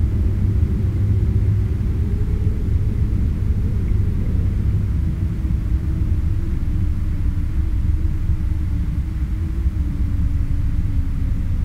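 Dark ambient drone: a deep, steady low rumble with faint tones above it that waver and drift slowly in pitch.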